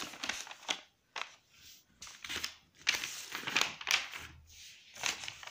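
Paper pages of a printed exam booklet being handled and turned: a series of irregular crinkling rustles.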